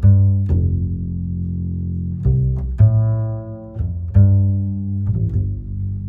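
Background music: a slow line of low, held string notes, each starting with a sharp attack and changing every second or so.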